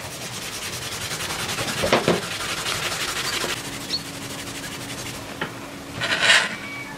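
Fibrous paper wrapping being pulled and torn apart by hand: a crackling rustle that builds over the first three seconds and fades, then a short, louder rip near the end.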